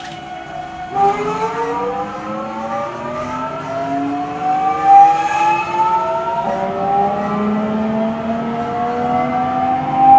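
373 series electric train's VVVF inverter and traction motors whining as the train accelerates from a stop, heard from inside the car: several tones start about a second in and climb steadily in pitch together.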